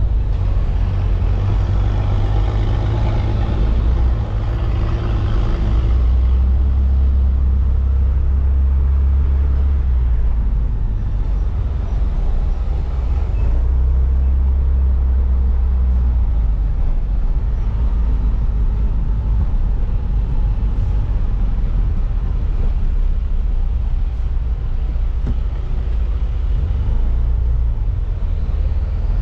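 Road and engine noise from a vehicle being driven along a paved street: a steady, loud low rumble.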